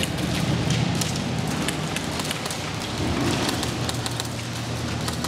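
Airsoft gunfire: many irregular sharp clicks and a patter of BBs striking wooden pallet walls, over a steady low hum.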